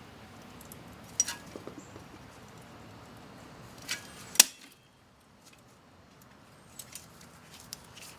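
A few sharp metallic clicks and clinks, the loudest about four and a half seconds in, from a caulking gun being fitted against a brake caliper and squeezed to push its piston back.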